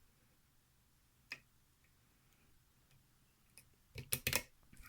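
Small metallic clicks from lock picking tools in a pin-tumbler challenge lock: a single click about a second in, then a quick cluster of clicks near the end.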